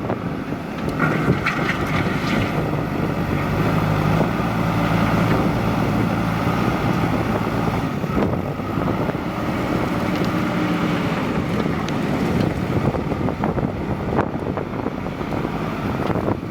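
JCB 3DX backhoe loader's diesel engine running under load, its note swelling twice as the machine works, with wind noise on the microphone.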